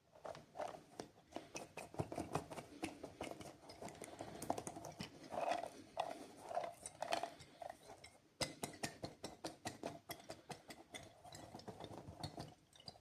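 Plastic candy wrappers being handled and torn open, a dense run of quick crinkles and crackles with a brief pause about two-thirds of the way through.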